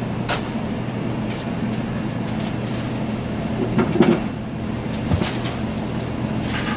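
Steady low mechanical hum, with a metal ladle clinking and scraping against a large steel tray of rice a few times as rice is scooped out. The loudest scrape comes about four seconds in.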